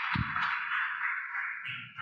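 Audience applauding, the clapping fading away near the end, with a brief low thump just after it begins.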